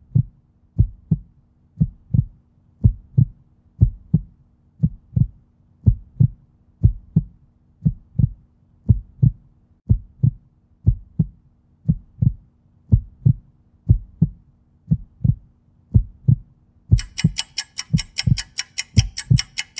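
Heartbeat sound effect: low double thumps, about one pair a second, over a faint steady hum. About three seconds before the end, fast clicking joins in at roughly eight a second.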